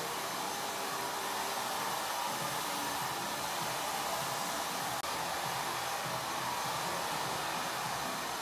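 Hair dryer running steadily, an even rush of air with no breaks.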